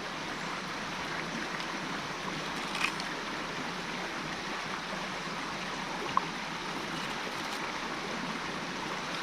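Steady rushing of a running stream, with a couple of faint clicks.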